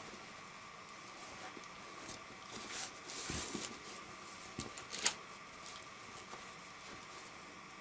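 Hands handling a velvet tablecloth laid over a clear plastic wrapper: soft rustling and crinkling of the cloth and plastic, louder around three seconds in, with a short sharp crackle about five seconds in.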